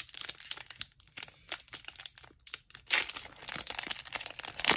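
Foil wrapper of a Pokémon card booster pack being torn open and crinkled by hand: a quick run of sharp crackles that grows louder and denser about three seconds in.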